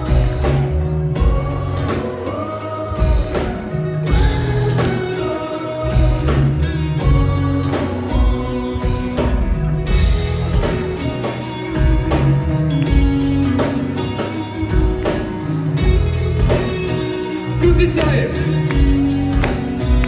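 Live pop-rap song played loud over a concert PA: a heavy beat and bass line under a wordless vocal melody.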